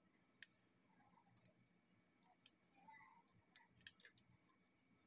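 Faint, irregular ticks and clicks, about a dozen of them, from metal tweezers touching the opened iPhone 7 Plus's internal parts during its battery replacement.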